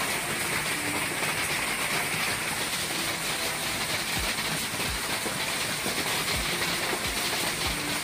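Hailstorm with strong wind: a steady, dense roar of wind-driven hail, with a few dull low thumps from about four seconds in.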